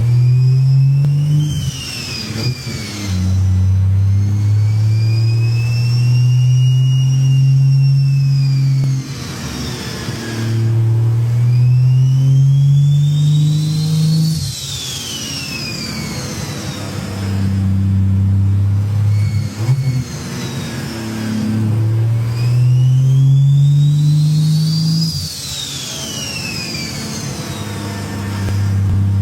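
Turbocharged car accelerating hard in several pulls, the engine note climbing in pitch and then dropping at each shift or lift-off. A turbo whistle rises with each pull and falls away after it, with short fluttering bursts from the turbo (the 'stututu') when the throttle closes.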